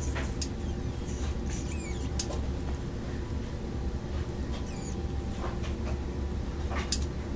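Steady low background hum with faint, short high squeaks now and then and a few sharp clicks.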